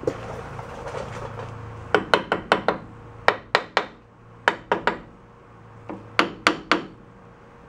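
Hammer tapping the cover of a VW bus rear gear reduction box into place over its bearing: quick light strikes in four bursts of three to five, starting about two seconds in.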